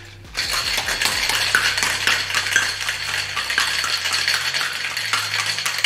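Ice cubes rattling hard inside a Boston cocktail shaker, a metal tin capped over a mixing glass, shaken vigorously in a fast continuous clatter that starts a moment in.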